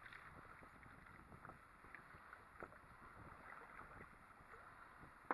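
Near silence: faint wind noise with a few soft clicks scattered through it.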